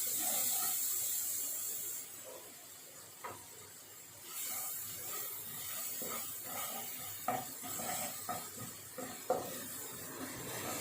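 Blended chilli, garlic and shallot paste sizzling in margarine in a pan while a utensil stirs it, scraping and tapping against the pan, with the stirring becoming busier about four seconds in.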